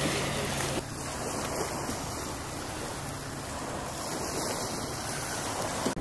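Steady rushing noise of wind and waves, with wind buffeting the microphone.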